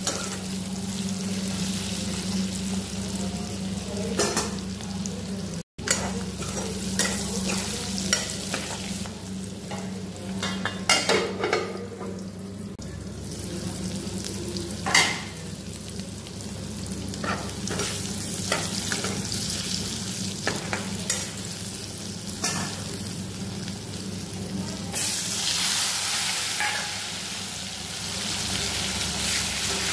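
Pork pieces sizzling as they fry in oil in an aluminium kadai, with a metal ladle scraping and knocking against the pan now and then. A steady low hum runs underneath. The sizzle grows louder near the end as sliced onion goes into the hot oil.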